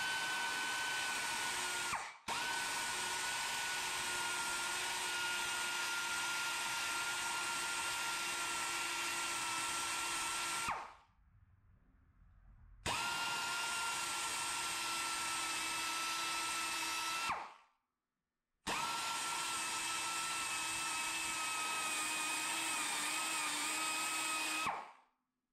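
Air-powered die grinder whining at high speed as its bit cuts into the cast-iron intake port of a Big Block Chevy oval port cylinder head. The pitch sags slightly under load, and the cutting is slow going. It runs in four stretches and stops abruptly between them.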